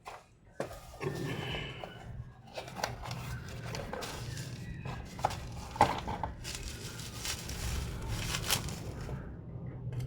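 Irregular clicks, scrapes and rustling of hands working on a TV circuit board and tools, over a steady low hum.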